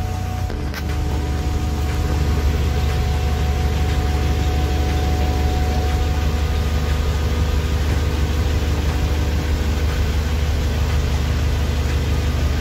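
Narrowboat's diesel engine running steadily as a low, even hum, with a faint higher steady tone that stops about halfway through.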